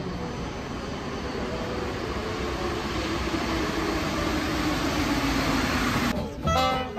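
Paris Métro train pulling into the station: a steady rush of wheel and motor noise with a tone that slowly falls in pitch as the train slows. About six seconds in it cuts off abruptly and music takes over.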